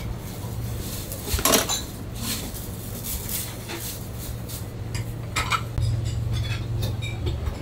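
Ceramic plates and cutlery clinking at irregular moments as dishes are handled, the loudest clatter about a second and a half in, over a steady low hum.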